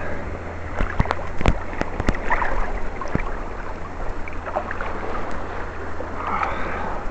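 Sea water sloshing and splashing around a camera held at the water's surface, with a few sharp knocks between about one and three seconds in.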